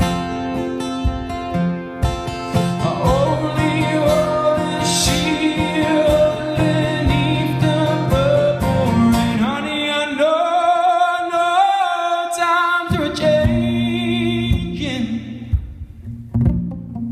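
Male singer with a strummed acoustic guitar, performing live. The voice comes in about three seconds in. Near the middle the guitar drops out while he holds one long, wavering sung note, and then the strumming comes back.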